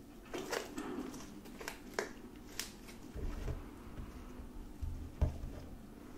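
A thick, clay-like slime made with deodorant being squeezed and kneaded by hand, giving short sticky clicks and pops. In the second half come soft low thumps, the loudest a little after five seconds, as the ball is pressed and handled.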